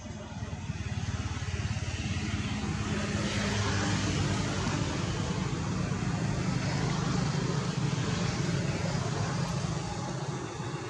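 A distant engine droning steadily. It grows louder over the first few seconds, then holds.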